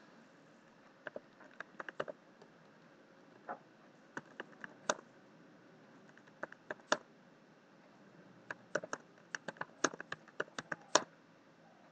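Computer keyboard typing in short, irregular runs of keystrokes with pauses between them; the typing stops near the end.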